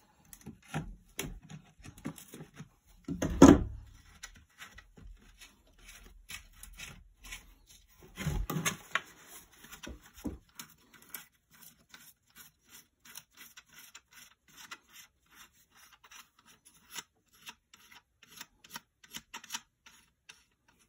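Small metal clicks and scraping as corroded terminal nuts on a Zareba electric fence controller's plastic case are worked loose, first with locking pliers and then by hand. There are two louder thumps of handling about three and eight seconds in, followed by a long run of light clicks as the nuts are turned.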